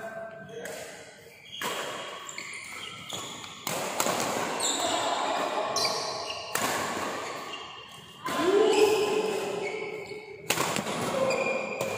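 Badminton being played in a large hall: several sharp racket hits on the shuttlecock a few seconds apart, short squeaks from shoes on the court floor, and a player's shout near the middle.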